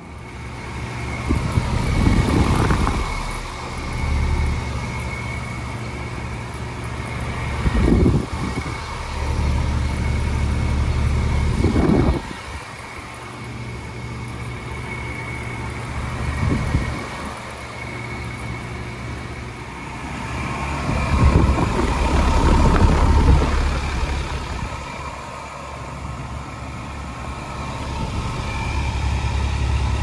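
Carrier central air-conditioner outdoor condensing units running: a steady compressor and condenser-fan hum with a thin, steady high tone over it, and several brief rumbles now and then.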